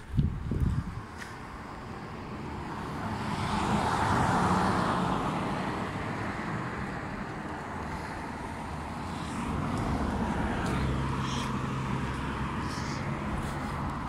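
Road traffic going past: tyre and engine noise swells to a peak about four seconds in and fades, then a second vehicle rises in the second half with a low engine hum.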